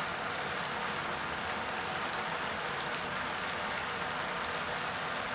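Tamarind pulp with turmeric and salt sizzling steadily as it simmers in a kadhai, the tempering of mustard seeds, dals and chillies bubbling in it.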